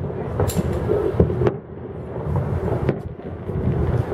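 Distant fireworks going off, about four sharp bangs, over a steady low rumble of wind on the microphone.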